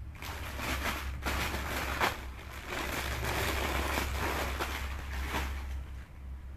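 Rustling and crinkling from garments being handled and sorted, in a run of crackly noise that lasts about five seconds. A steady low hum runs underneath.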